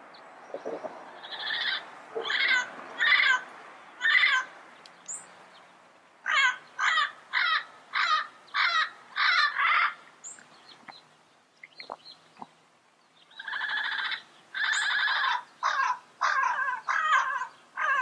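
Yellow-headed parrot (yellow-headed amazon) calling in repeated short squawks: a group of about four, then a faster run of about seven, then a pair of longer drawn-out calls and a quick series near the end.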